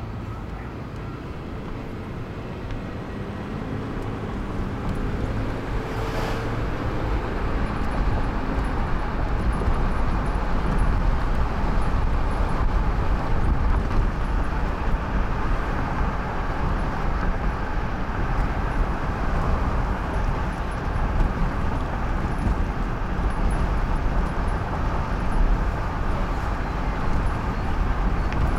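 Steady road and engine noise heard from inside a moving car, with a deep rumble. It grows louder over the first ten seconds or so, then holds steady.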